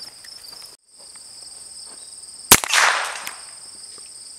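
A single revolver shot about two and a half seconds in, a sharp crack with a short ringing tail. Steady high-pitched insects chirp throughout.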